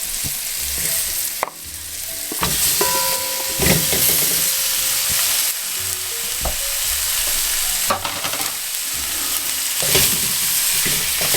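Pre-cooked duck pieces going into a hot pot of frying seasonings and spring onions, sizzling steadily, with several sharp knocks and brief ringing of a utensil against the pot.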